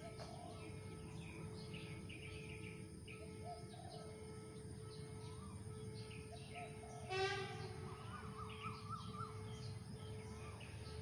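Several wild birds calling with scattered short chirps and whistles, and one louder, fast rattling call a little after seven seconds in. A faint steady hum and a thin high hiss run underneath.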